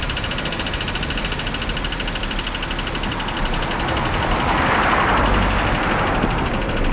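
Car engine running steadily at low speed, heard from inside the moving car. A rush of noise swells and fades about four to six seconds in.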